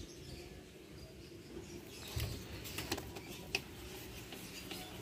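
Faint hand-tool work on a car's rubber air intake hose: a screwdriver turning the hose-clamp screws, with a dull knock about two seconds in and a few light clicks after it.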